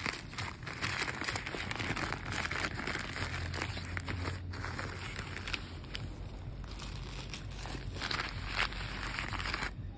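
Plastic courier mailer bag crinkling and crackling as hands handle it and pull it open.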